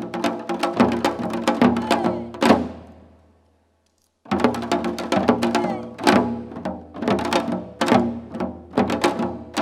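Korean nongak percussion music: rapid janggu drum strokes over a steady sustained melody. About two and a half seconds in it fades away to a second of silence, then starts again abruptly at full level.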